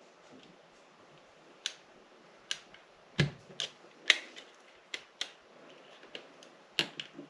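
About nine sharp, irregular clicks and taps of small instrument-cluster parts being handled as the gauge needles are pressed down onto their spindles, the loudest with a dull knock about three seconds in.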